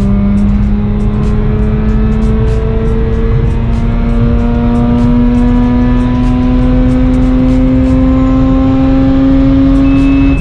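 Mazda RX-8's two-rotor 13B Renesis rotary engine, heard from inside the cabin, pulling steadily in one gear with its pitch climbing slowly as the revs rise. The pitch drops suddenly at the very end as the revs fall.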